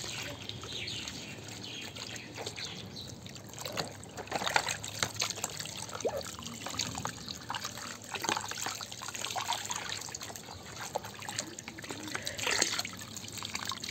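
Water trickling and splashing with irregular small knocks and drips, as muddy toy vehicles are washed.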